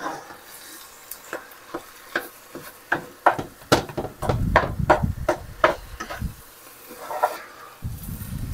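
A whisk stirring a simmering sauce in a pot, ticking against the pot a few times a second, with a low rumble partway through and again near the end.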